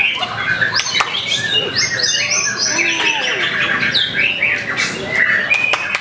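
White-rumped shama (murai batu) singing a varied, continuous song of quick sweeping whistles and chattering notes, over a dense chorus of other caged songbirds singing at the same time.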